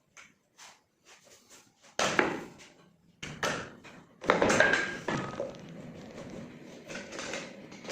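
Wood being knocked and handled: a few faint taps, then several sharp knocks about a second apart, followed by continuing clatter.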